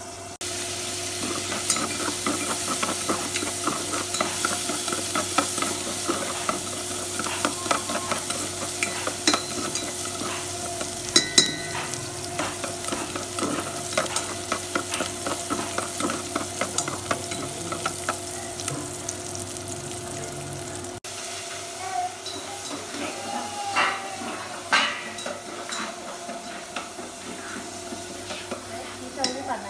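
Sliced shallots sizzling in hot oil in a pot while being stirred, the utensil clicking and scraping against the pan. The sizzle starts about half a second in and is quieter in the last third after a cut.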